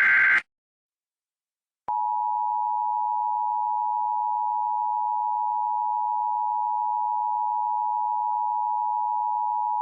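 The Emergency Alert System attention signal: two steady tones sounding together, held for about eight seconds and starting about two seconds in, to announce an emergency alert. Just before it, a burst of SAME digital header data cuts off right at the start, followed by a short silence.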